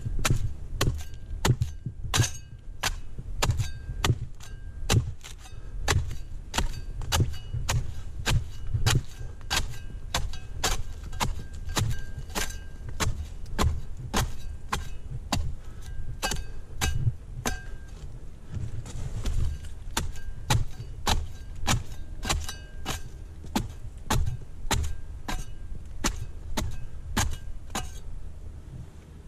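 Steady repeated chopping strokes, about two a second, of the climber's corvellón pruning blade cutting into Canary Island date palm fronds; many strokes give a short metallic ring, and there is a brief lull in the middle.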